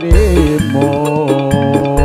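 Live campursari band music over a sound system: a long held melodic note with a slight waver over a steady bass line, the drum beats briefly dropping out before resuming.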